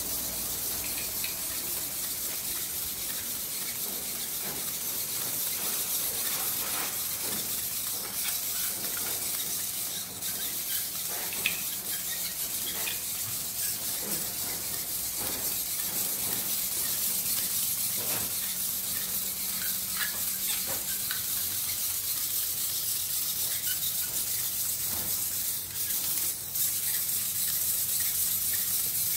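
Faint scattered clicks and short whirs of a small quadruped spider robot's servo motors as it walks on tile, over a steady hiss.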